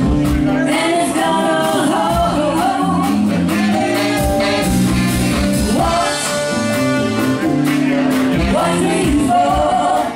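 Live funk band playing: a woman sings lead over electric bass, Nord keyboard and drum kit, with held sung notes and a steady drum beat.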